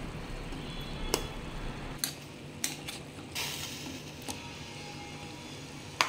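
Stainless steel pot of lemongrass and onion water bubbling on the boil, with a few sharp clinks of a metal spoon against the pot.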